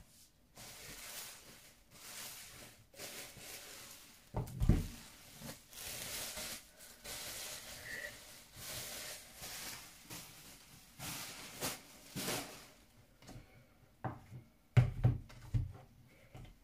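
Plastic bubble wrap crinkling and rustling in stretches as it is handled and pulled off an album, with a dull thump about four and a half seconds in and another near the end.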